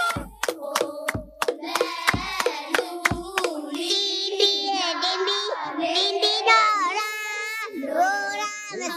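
Background music of a song sung by children's voices, with hand claps over the first three seconds or so.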